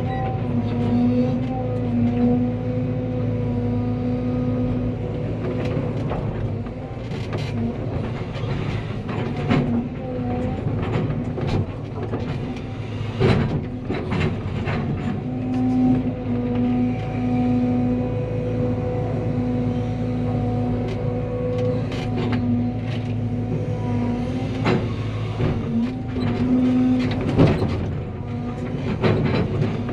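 Cat 320 excavator's diesel engine and hydraulics running under load, a steady drone with a held tone that wavers and briefly drops out at times. Frequent sharp knocks and clanks are scattered through it.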